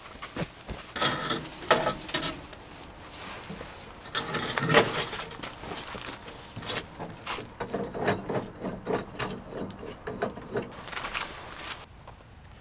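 Camping gear being handled: a canvas tote bag picked up and moved, with irregular rustling of fabric, scrapes and a few sharp knocks.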